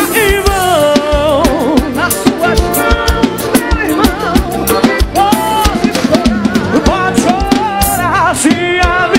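Live band playing an upbeat song: singing into microphones over a drum kit beat.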